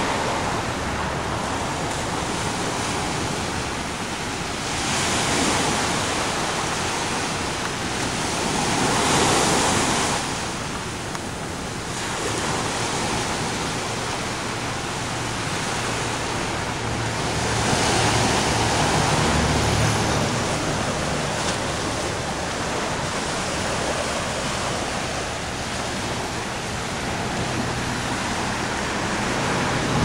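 Ocean surf: small waves breaking and washing up a sandy beach in a steady wash that swells several times as sets come in.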